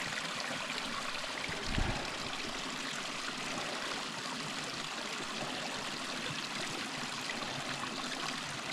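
Mountain stream rushing steadily over rocks. A short low thump about two seconds in.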